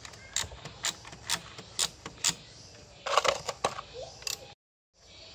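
Ratchet wrench clicking at about two clicks a second as it loosens the oil drain bolt under a Kawasaki Ninja 250 FI's engine, with a louder cluster of metal clinks about three seconds in.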